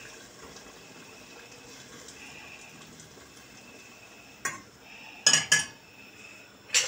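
A metal spoon stirring beans in a stainless steel pot, clinking sharply against the pot four times in the second half, over a faint steady hiss.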